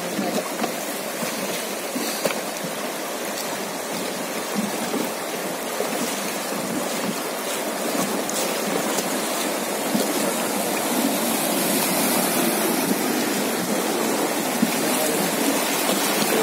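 Fast mountain-river water rushing and splashing over rapids around a wooden raft, a steady rushing noise that grows louder about halfway through as the raft runs into rougher white water.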